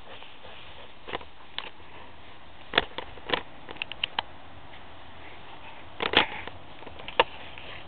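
Short, scattered rustles and crackles of tall grass close to the microphone as a puppy noses and pushes through it, over a steady low hiss; the loudest come about three and six seconds in.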